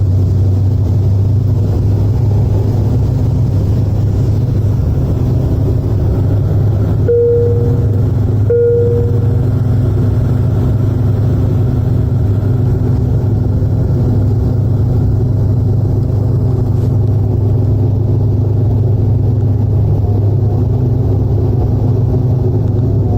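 Steady low rumble of a SpiceJet airliner landing, engines and airflow running continuously. Two short beeps sound about a second and a half apart roughly a third of the way in.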